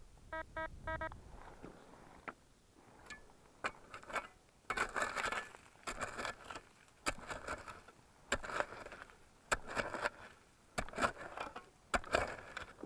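Three short electronic beeps in quick succession at the start, typical of a metal detector, then irregular crunching steps on a stony, gravelly shore.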